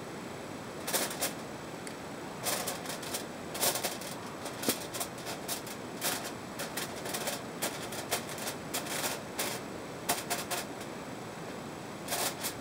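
Sharpie marker scratching across aluminium foil over a pan in short irregular strokes as a word is written, with light foil crinkling under the hand.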